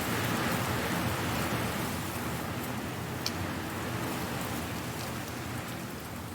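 Strong wind blowing dry leaves about, a dense rustling hiss that is fullest in the first couple of seconds and then eases slightly, with a single sharp tick about three seconds in.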